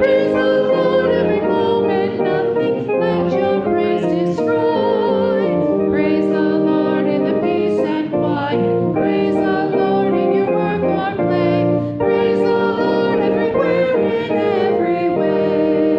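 Congregation singing a hymn in unison and harmony with instrumental accompaniment, held chords moving line by line.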